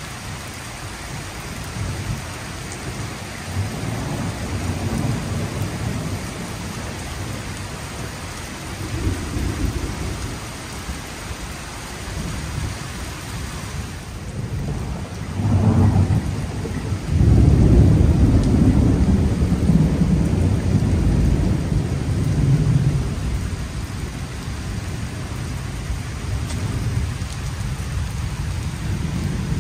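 Steady rain falling on pavement, with rolling thunder rumbling underneath; the thunder swells to its loudest a little past halfway and rumbles on for several seconds before easing.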